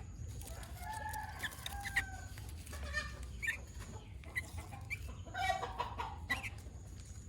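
Birds calling in a series of short pitched notes and gliding calls, several clustered together.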